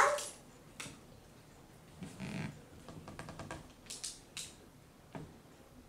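Scattered small clicks and taps of hands working on laptop screen parts, with a quick run of ticks about three seconds in and a soft swell of sound just before it.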